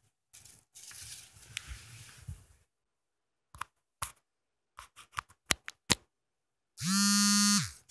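Phone rustling in the hand as a charging cable is plugged in, then a handful of sharp clicks. Near the end, a loud buzzy electronic tone sounds for just under a second, gliding in and out: the phone's alert on being connected to the charger.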